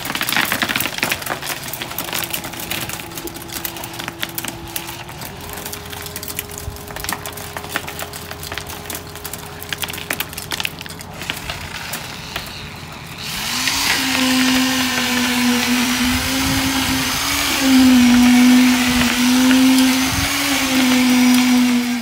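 Wet concrete coming out of a concrete pump's hose onto the rebar mesh, with dense crackling over a faint steady hum. About halfway through, an electric concrete poker vibrator starts up with a loud, slightly wavering motor whine that runs on to the end.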